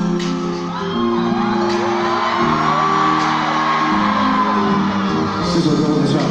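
Live pop concert music with held chords, and a crowd of fans screaming and cheering over it.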